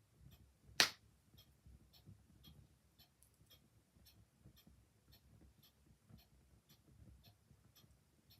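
Clock ticking steadily, about two ticks a second, with one loud sharp crack from the wood fire popping about a second in.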